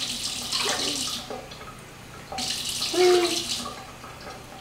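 Kitchen faucet running water into a measuring cup, in two spells of about a second each with a short pause between.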